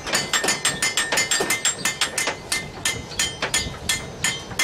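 Blacksmith's hammer striking red-hot iron on an anvil in a steady rhythm, about three blows a second, each blow with a bright metallic ring.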